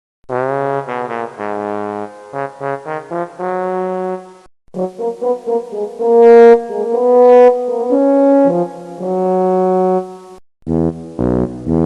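Brass instrument playing short melodic phrases: an opening note that slides up, a string of quick short notes, then after a brief break a longer phrase of held notes, the loudest about halfway through. A lower-pitched passage starts near the end.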